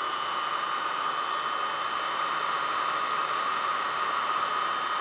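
Small electric sewing machine motor, retrofitted to a New Home treadle machine, running steadily at speed on a variac: a steady whine with the rush of its cooling fan. The freshly rewired motor is working.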